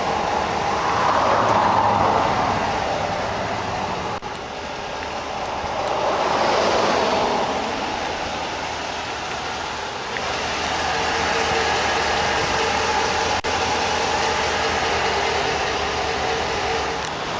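Motor-vehicle traffic noise: two vehicles swell up and fade away as they pass, then a steadier engine hum sets in about ten seconds in.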